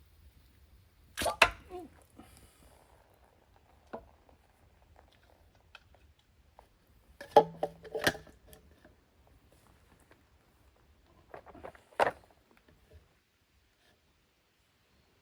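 Sharp knocks and clatters in three short bursts, about a second in, around seven to eight seconds in and near twelve seconds, with a single tick between: hand tools or metal parts being handled and set down on a workbench.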